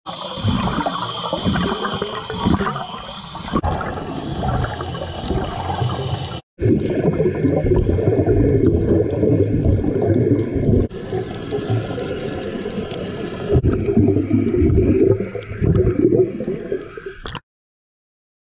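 Scuba divers' exhaled bubbles gurgling, heard underwater, coming in surges a few seconds long. The sound drops out briefly about a third of the way in and cuts off suddenly near the end.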